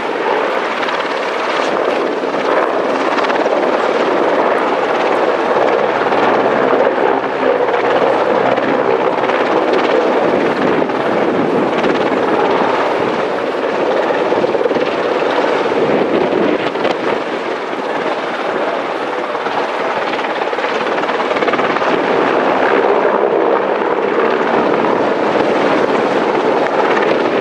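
AgustaWestland EH101 Merlin military helicopter flying a low display pass, its rotor and turbine engines making a loud, steady noise that dips slightly midway and swells again.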